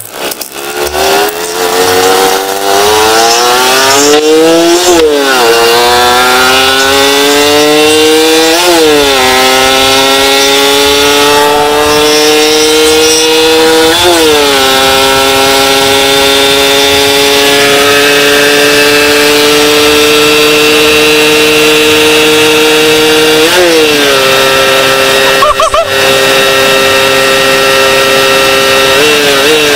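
Suzuki Satria 120 S single-cylinder two-stroke with an aftermarket W-One Racing exhaust, accelerating hard through the gears. The engine note climbs and drops sharply at four upshifts, then holds nearly steady at speed in top gear.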